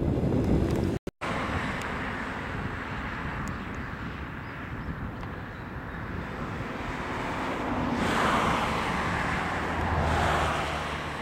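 Distant roar of an Airbus A320's jet engines as the airliner climbs away after takeoff, heard as a broad rushing noise with wind buffeting the microphone. The sound cuts out for a moment about a second in, and the roar swells twice later on.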